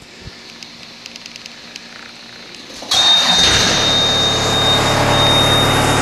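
Yanmar four-cylinder diesel engine of a Volvo MC80B skid steer starting about three seconds in, after a few light clicks, then running steadily. A steady high-pitched tone sounds along with it.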